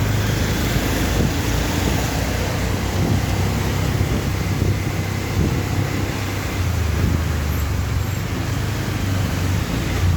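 Steady road traffic noise with a continuous low rumble.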